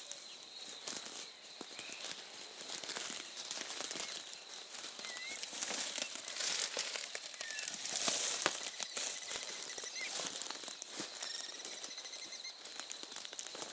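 Birds calling in the countryside at dawn: scattered short chirps and a brief trill near the end, over a steady thin high tone and a dense crackling rustle close to the microphone.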